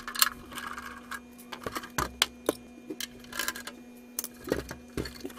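Scattered clicks, taps and light knocks of a Tektronix 2225 oscilloscope's metal case being handled and turned over on a workbench while its case screws are being undone. A few short rustles come with the clicks, over a faint steady hum.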